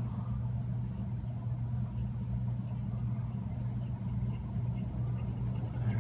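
1920s Emerson Longnose ceiling fan running smoothly, its motor giving a steady low hum.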